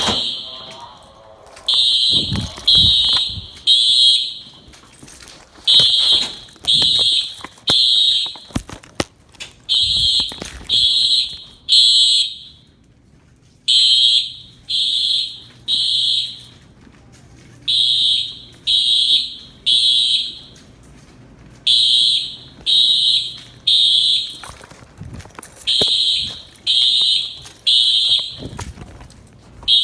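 Simplex fire alarm horns sounding a high-pitched tone in the temporal-three evacuation pattern: three short blasts, a pause, then three more, about every four seconds. Just before the pattern starts, a steady tone cuts off.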